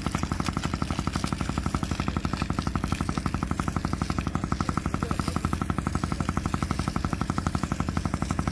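Engine-driven water pump running steadily with a fast, even chugging beat as it feeds a hose.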